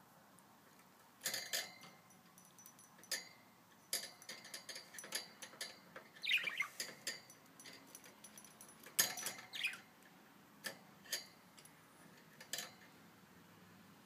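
Four-month-old budgerigar in its wire cage: irregular clicks and taps as it moves on the perches and toys, with a short chirp about six seconds in and another about nine seconds in.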